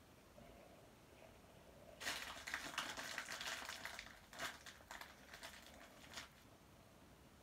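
Paper parcel wrapping crinkling and rustling as hands pull and tear at it: a dense, crackly rustle that starts about two seconds in and dies away about six seconds in.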